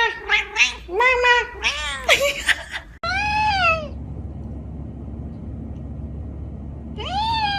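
Domestic cat meowing: a quick run of short meows for about two and a half seconds, then a longer meow. A low steady hum follows, and another meow comes near the end.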